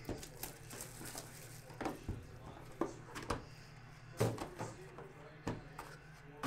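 A box of Panini Immaculate baseball cards being opened and handled: an irregular run of light clicks, taps and rustles of cardboard and plastic packaging, with a sharper knock near the end.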